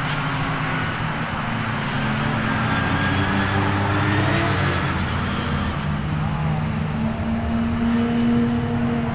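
Several GT race cars running at moderate, steady revs on the formation lap, their overlapping engine notes mixing into a continuous drone with slight shifts in pitch.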